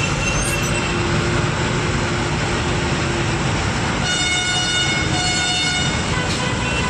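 Truck engine running with a steady rumble under a vehicle horn. One steady hooting note sounds for a few seconds, then a louder, richer horn blast of about two seconds follows around four seconds in.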